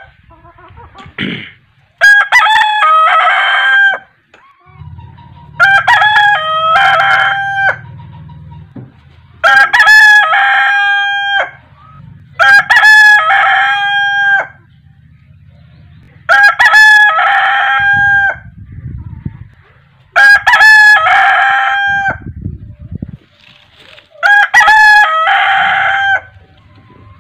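A domestic rooster crowing repeatedly, seven loud cock-a-doodle-doo calls about four seconds apart, each call lasting around two seconds.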